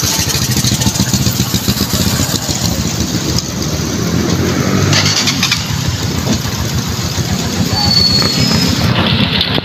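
The motorcycle engine of a tricycle (motorcycle with sidecar) running close by, with a fast, even pulse of firing.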